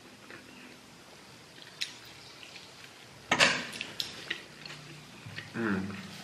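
Close-up eating sounds of a man chewing a fried arepa with tomato guiso, eaten by hand: soft wet mouth clicks, one louder sharp sound about three and a half seconds in, and a short hummed note near the end.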